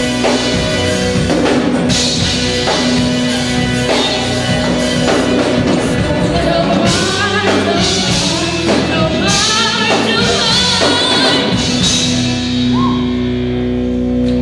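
Live band music with a drum kit keeping a steady beat, and a singing voice carrying a melody through the middle.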